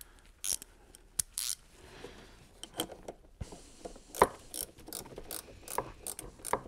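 Hand ratchet clicking in short, uneven strokes as it tightens the nut holding the ring terminals on a battery's positive terminal stud.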